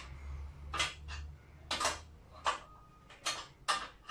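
Irregular metallic clinks and taps, about six in all, from nuts and fasteners being worked onto the pole clamp of an LED street-light luminaire. A low hum runs under the first half and stops.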